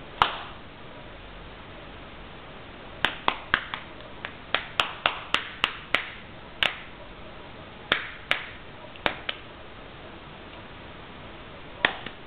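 A series of sharp, irregular clicks with a short room echo: one just after the start, a quick run of about sixteen in the middle, and one more near the end.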